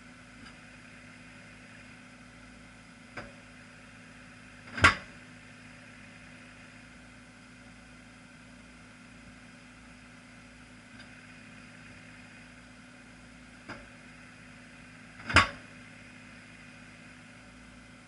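Accelerated weight drop seismic source striking the ground twice, about ten seconds apart, each heavy impact preceded by a lighter click a moment before. The carrier's engine runs steadily underneath.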